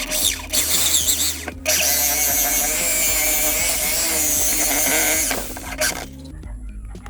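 A handheld power tool's motor running in two bursts, a short one and then a longer one of about four seconds with a wavering whine, as it works on the wooden speaker box.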